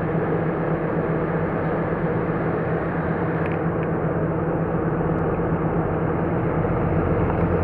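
1967 Dodge Coronet 500's 383 cubic inch big-block V8 with a four-barrel carburetor, running steadily at low revs as the car creeps forward.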